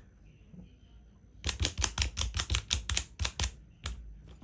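Plastic pieces of a 3x3 Rubik's Cube sliding puzzle clicking as they are slid and turned into place: a quick run of clicks, about five a second, starting about a second and a half in and lasting about two seconds, then one more click near the end.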